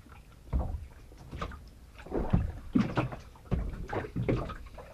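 Spoon scraping and clicking in a plastic tub and close crunching of cornflakes being eaten, in irregular short crackles with low knocks.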